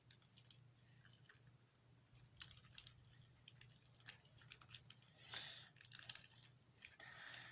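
Faint sticky squelches and clicks of freshly activated metallic Elmer's glue slime being pulled and kneaded by hand, with a couple of slightly louder squishes later on.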